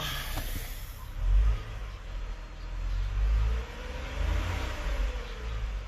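2012 Ford Flex's V6 engine running with a low rumble that swells three times, about a second and a half in, around three seconds and near five seconds, as if revved. It is running smooth, with no misfire heard.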